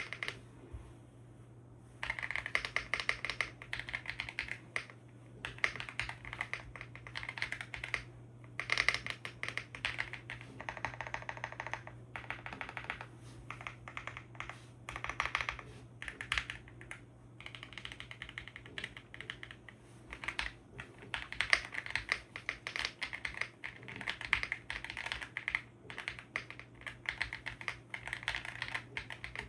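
Typing sound test on a WOBKEY Zen 65 Ultra, a CNC aluminium 65% mechanical keyboard with Luna switches and Cherry-profile PBT keycaps: fast runs of keystrokes in bursts with short pauses, starting about two seconds in. A faint steady low hum sits underneath.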